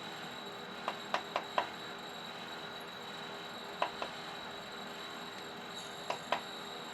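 Light, sharp clicks or taps in small groups, four about a second in, then two, then two more, over a steady faint hum with a thin high whine.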